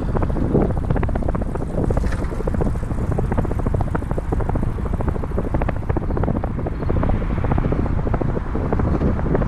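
Wind rushing over the microphone of a camera on a moving bicycle, mixed with a fast, uneven clatter of small rattling clicks.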